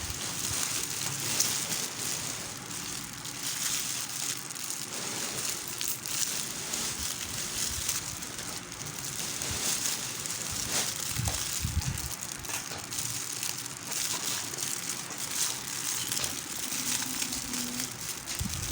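Packaging being crinkled and rustled by hand during an unboxing, an ongoing crackle with a couple of low knocks about two thirds of the way through.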